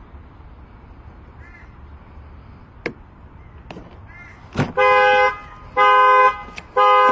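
A 2017 Chrysler 200's horn blasting over and over about once a second as its anti-theft alarm goes off, set off by the door being opened after the lock was picked. A few sharp clicks come just before the first blast, and crows call faintly.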